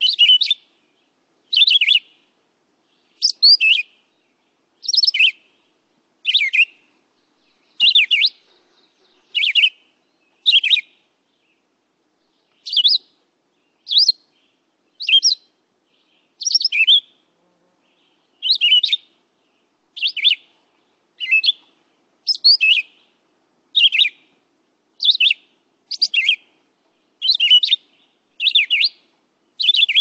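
Red-eyed vireo singing: short, high phrases, about one a second, each one shaped differently and separated by a brief pause.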